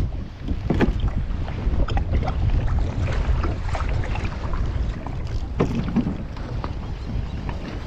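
Wind buffeting the microphone on a kayak at sea, with a low rumble throughout and a few short splashes or knocks of water against the hull.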